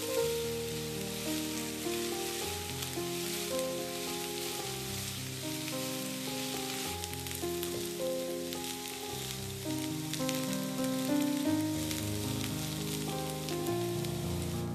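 Food sizzling as it fries in a pan, a steady crackling hiss, under soft background music made of held melodic notes.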